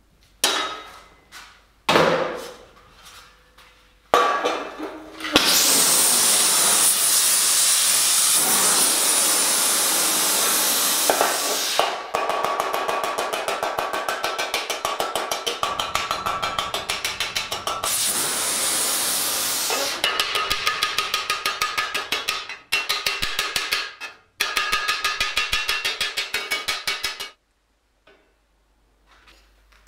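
Sheet steel for armor being worked with a hammer: a few separate blows, then long runs of rapid, evenly spaced hammer strikes on the metal. For several seconds near the start the strikes give way to a continuous hissing noise of a power tool.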